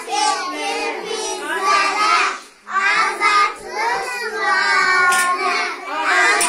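A group of kindergarten children singing together in unison, with a short pause about two and a half seconds in.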